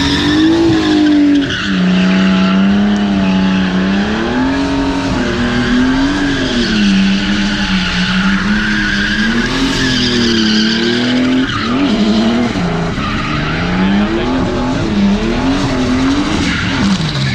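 Drift cars sliding on tarmac with tyre squeal, engines revving hard. The engine note keeps swinging up and down with the throttle, and about two-thirds of the way in it turns into quicker, choppier rises and falls.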